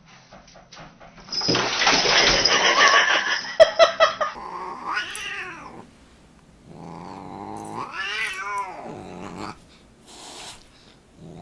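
A cat yowling: two long drawn-out calls that rise and fall in pitch, after a loud rush of noise in the first few seconds.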